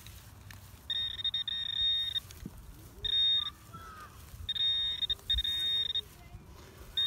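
Metal detecting pinpointer sounding in a dug hole: about six separate stretches of high electronic beeping, each half a second to a second long, as the probe is swept over metal still in the soil, the rest of a lead relic piece.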